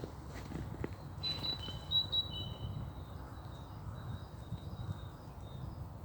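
A small songbird singing a run of thin, high, short notes that starts about a second in and fades near the end, over a steady low rumble.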